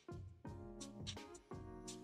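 Music playing through the Teclast P30T tablet's built-in speakers: held chords with a drum hit at each change, fairly quiet.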